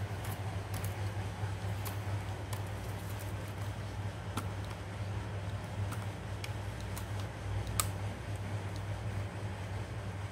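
Scattered light clicks and taps of plastic laptop parts being handled as the opened keyboard deck and its ribbon cable are worked on, over a steady low hum.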